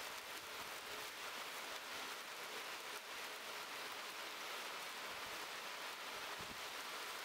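Chamois burger patty frying in a small steel pan over campfire embers: a steady sizzling hiss with faint crackle.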